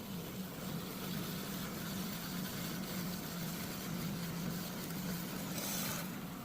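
Metal-cutting power saw running slowly through an anvil: a steady mechanical hum, with a brief hiss near the end.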